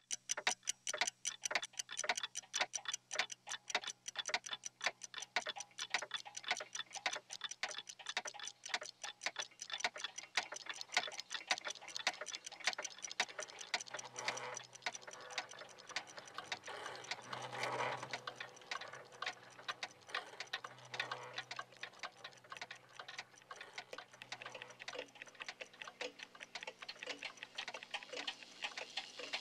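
A room full of clocks ticking at once: many overlapping ticks and tocks from wall, pendulum and novelty clocks at different rates.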